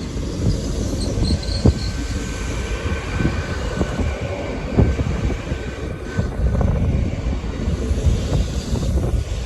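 Train running past on the main line: a loud, dense rumble of wheels on rail with scattered sharp knocks and a faint high whine above it.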